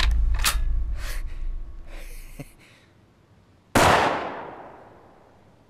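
Dramatic background music with sharp hits fades out. A little past the middle a single loud gunshot cracks out and dies away in a long echoing tail.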